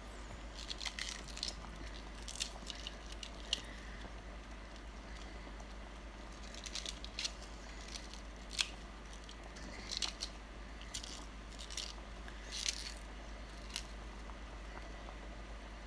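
Raw cabbage leaves being pinched and torn apart by hand: irregular crisp crunches and snaps of the fresh leaves breaking, over a low steady hum.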